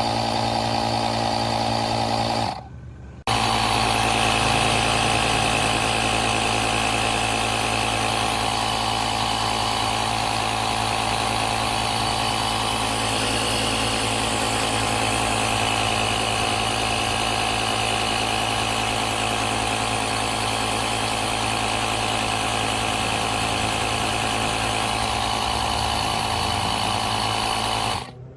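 Cordless 21-volt tire inflator's piston compressor running steadily. It stops for a moment about two and a half seconds in, starts again, and cuts off suddenly at the end.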